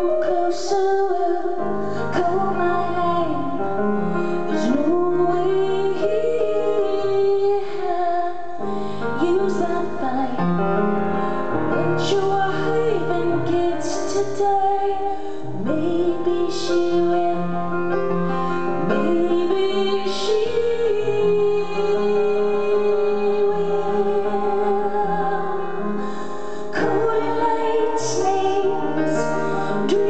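Live song: a woman singing long, held notes over piano chords.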